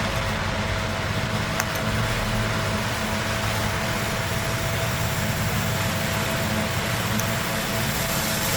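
Steady mechanical hum with a thin high tone running through it, and a small click about one and a half seconds in.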